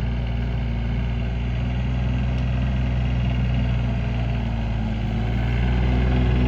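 Mini excavator engine running steadily, getting louder near the end.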